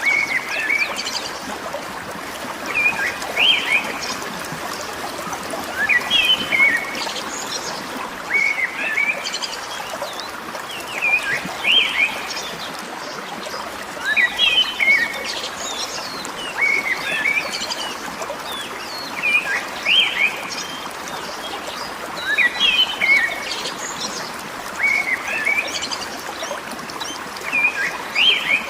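A bird repeating a short phrase of quick chirps about every three seconds, over a steady hiss of running water.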